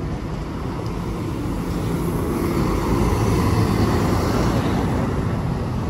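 Double-decker bus driving close past, its diesel engine running with a low rumble that grows louder and is loudest about three to four seconds in as the bus goes by.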